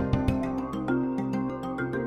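Background music: sustained chords over light, regular percussive hits, with a few low thumps near the start.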